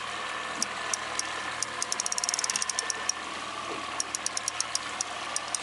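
Boat's outboard motor running steadily at low speed, with runs of rapid high ticks from a fishing reel several times as line is cranked in on a hooked fish.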